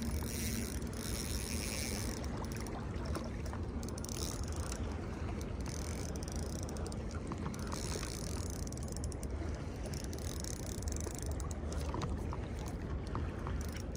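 Steady outdoor noise of wind and water: a constant low rumble, with a higher hiss that swells and fades every second or two.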